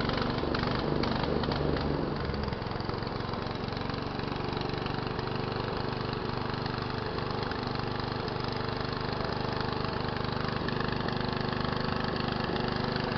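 Small engine running a foam-grinding machine: louder and rougher for the first couple of seconds, then settling into a steady drone.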